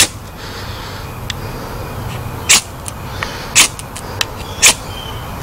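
A Blind Horse Knives Bushcrafter knife's spine scraped hard down a ferrocerium rod, striking sparks: four short, sharp scrapes, one at the very start and three about a second apart from about two and a half seconds in, with a few fainter ticks between.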